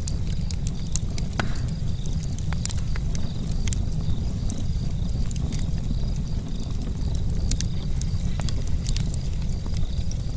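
Charcoal campfire crackling, with many small irregular pops and snaps over a steady low rumble.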